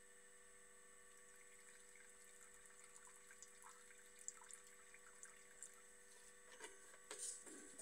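Faint trickle of thinner poured from a plastic bottle into a paint mixing cup, over a steady electrical hum. A few light knocks near the end.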